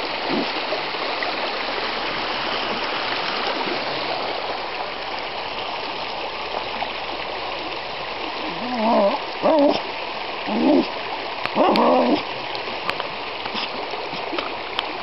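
Stream water running steadily, with a small dog giving four short pitched barks about nine to twelve seconds in.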